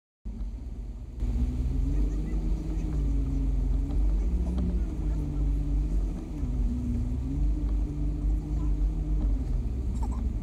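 Bass boat outboard motors running under way, the engine pitch drifting up and down with throttle, over a heavy low rumble of wind on the microphone.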